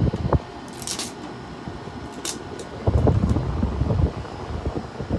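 Haier 5,200 BTU window air conditioner running with its fan on high: a steady rush of fan and airflow. Irregular low thumps and a few sharp clicks come through it, loudest about three seconds in. The owner blames an odd fan noise on a faulty fan blade or fan motor.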